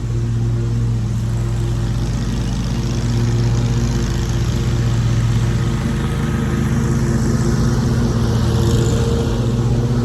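Engine of a Toro Grandstand 36-inch stand-on mower running steadily under load while mowing grass.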